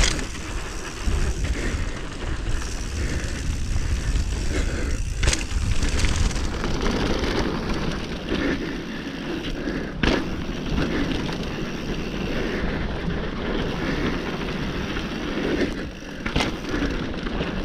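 Mountain bike descending a dirt singletrack at speed: a steady rumble of tyres on dirt mixed with the rush of air, broken by three sharp knocks, about five, ten and sixteen seconds in, as the bike jolts over bumps.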